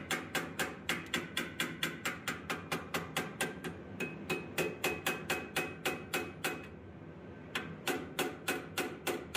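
Small hammer tapping rapidly on the steel wings of a forged dragonfly held in a bench vise, about three to four light blows a second, shaping and flattening the wings. The tapping breaks off for about a second roughly seven seconds in, then resumes.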